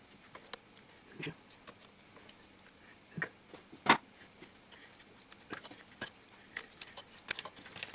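Scattered small clicks and taps of a screwdriver and hands working the plastic latch connectors on a Honda D17A engine's ignition coils, with one louder knock about four seconds in.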